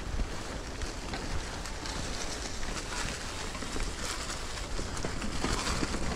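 Mountain bike tyres rolling over a trail of dry fallen leaves: a steady crackling rustle, with scattered clicks and knocks from the bike.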